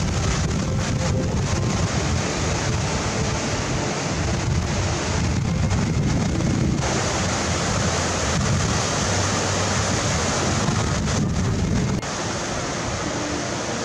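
White-water river rapids rushing over boulders, with wind buffeting the microphone in a low rumble. About twelve seconds in, the wind rumble drops away and the steady rush of water is left.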